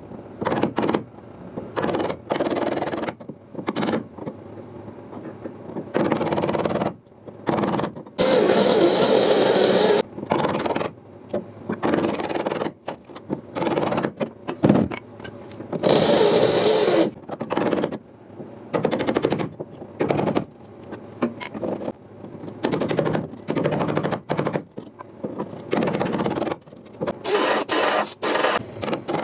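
Power tool cutting into rusted sheet-metal car body panels, run in repeated short bursts of one to a few seconds, starting and stopping many times.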